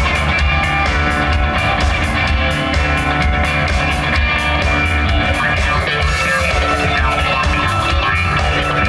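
Rock band playing an instrumental passage: guitars over bass and a drum kit, with steady cymbal strokes throughout.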